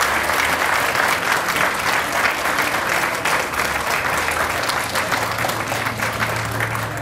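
A crowd of people applauding, a dense, steady patter of many hands clapping.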